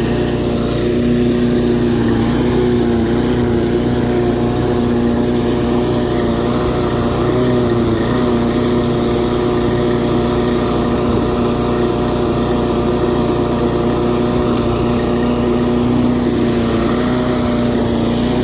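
Homemade push mower with an 8.5 hp Briggs & Stratton pressure-washer engine running steadily while mowing. Its note wavers slightly a few times as it is pushed through the grass.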